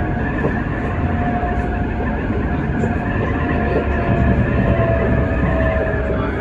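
Tram running, heard from inside the passenger cabin: a steady low rumble of wheels on rail under an electric motor whine that slowly falls in pitch.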